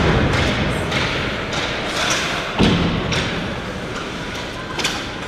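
Play on an ice hockey rink: a string of sharp knocks and thuds, about one every half second, from sticks, puck and boards, the heaviest thud about two and a half seconds in.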